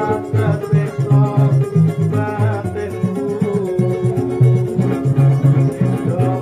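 Javanese keroncong-style band music: the small strummed cak and cuk lutes over a plucked cello bass line in a quick, steady rhythm, with a held melody line above.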